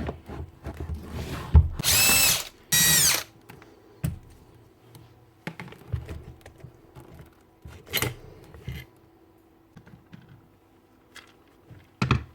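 Cordless power drill run in two short bursts, its whine climbing slightly in pitch each time, followed by scattered clicks and knocks of tools and parts being handled.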